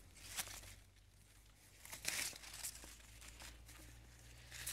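Faint crinkling and rustling of a plastic sample bag as a soil core is emptied into it from a stainless-steel soil probe, loudest about two seconds in.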